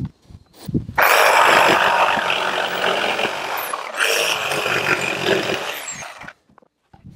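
Jigsaw cutting a notch into a wooden rafter. After a few light knocks, the saw starts about a second in and cuts steadily for about five seconds, easing off briefly partway through, then stops.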